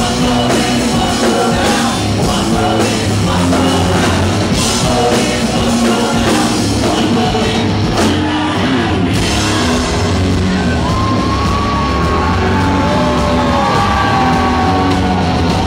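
Rock band playing live and loud, with electric guitar, drums and a lead singer; about ten seconds in, a long, wavering high note is held over the band.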